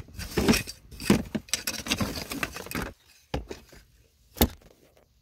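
Rustling and scraping of dry fur, hide and debris being shifted in a plastic tub for about three seconds, followed by two sharp knocks about three and four seconds in.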